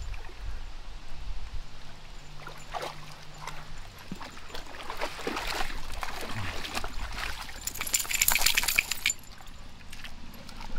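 Shallow creek water trickling and sloshing around a dog wading in it. A louder burst of splashing comes about eight seconds in.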